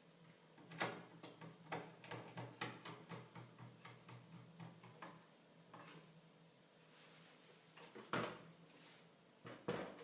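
Parts of a PlayStation 3 Fat console being handled during reassembly: a run of light clicks and knocks of plastic and metal parts. A few louder knocks come about a second in and again near the end.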